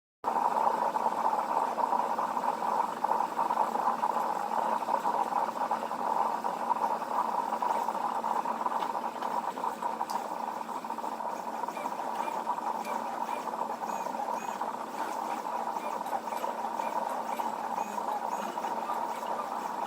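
H-Bot 3D printer running: a steady, busy buzzing and chattering from its motors as the print head moves, starting abruptly at the very beginning.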